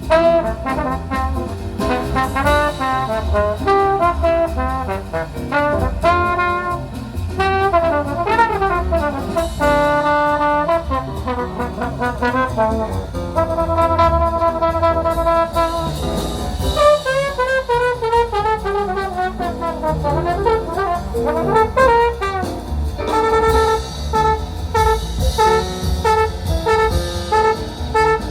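Jazz music led by brass instruments playing melodic lines, with sliding runs in the middle and a repeated short figure near the end, over a steady low bass.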